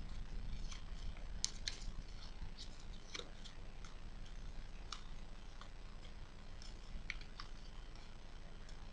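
Origami paper crackling as a folded paper crane is handled and its creases pressed by fingers: a scattering of short, sharp crinkles over a steady low hum.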